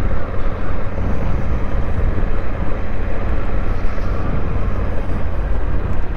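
Honda Africa Twin's 1084cc parallel-twin engine running at low road speed, a steady low rumble, with tyre and road noise from the rough dirt road.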